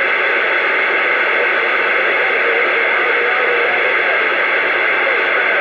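CB radio receiver hissing with steady, loud static on an open channel between calls, with a few faint wavering sounds coming through under the hiss.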